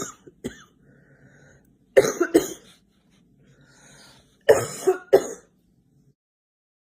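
A girl coughing in short fits. There is a single brief cough about half a second in, then a double cough about two seconds in, and another double cough about four and a half seconds in.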